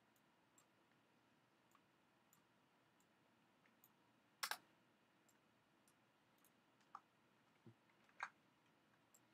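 Scattered clicks of a computer mouse and keyboard in a near-silent room, the loudest a quick double click about four and a half seconds in, with two more single clicks near the end.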